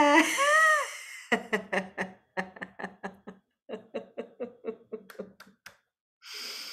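A woman's laughter-yoga laugh: a drawn-out voiced "ahh" out-breath, then a run of short rhythmic "ha-ha-ha" pulses, about four a second, trailing off. A breath in near the end.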